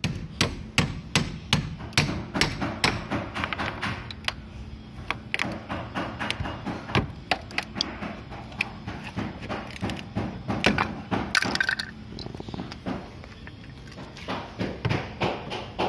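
Hammer blows on a Toyota Celica's fender panel during dent repair: sharp knocks at about two to three a second at first, then more spaced and irregular, over a faint steady hum.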